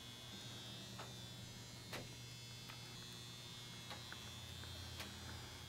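Faint steady electrical hum with a thin high whine over it, and a few soft clicks.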